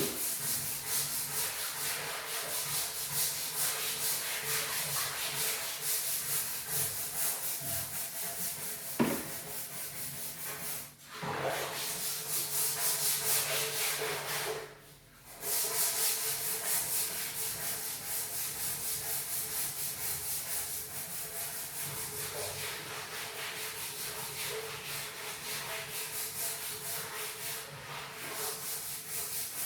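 A cat scratching and clawing at a wooden door to be let in, a rapid continuous scraping that breaks off briefly twice.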